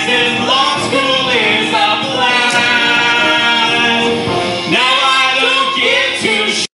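Two singers singing into handheld microphones over musical accompaniment, holding one long note in the middle. The sound cuts off abruptly at the very end.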